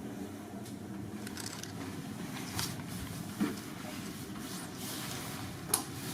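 Steady low room hum, with a few soft clicks and rustles about a third, halfway and near the end.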